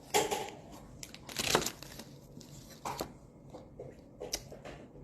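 PopMart blind-box packaging being torn open and crinkled by hand. There are several short tearing, rustling bursts, the loudest about a second and a half in, followed by lighter clicks and rustles.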